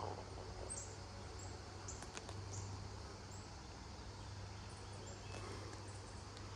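Steady wind noise with a constant low rumble, and a few short, high chirps scattered through it.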